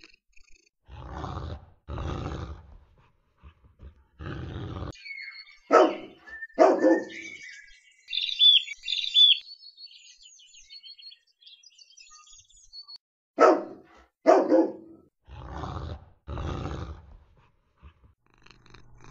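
Cartoon sound effects: slow snoring breaths of a sleeping cat, mostly in pairs, with a run of bird chirps in the middle. A few short pitched animal calls come twice, in pairs.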